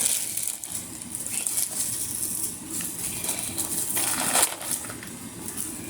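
Crinkling and rustling of plastic packaging being handled as the next bathing suit is unwrapped, with a sharper crackle about four seconds in.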